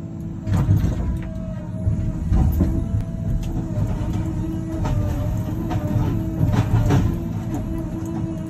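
Tigercat 855 carrier's diesel engine and hydraulics running under load, heard from inside the cab: a low rumble with a wavering whine that steps up about half a second in as the Waratah 623C processing head starts working. Repeated knocks and cracks come as the head grips and handles the stems and brush.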